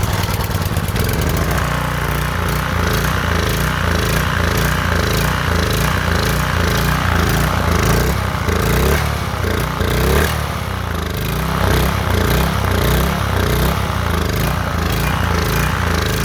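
Ryobi gas pressure washer's small engine running steadily, off choke, after a carburetor cleanout: the fault of dying whenever the choke was turned off is cured. It dips briefly near the middle and then picks up again.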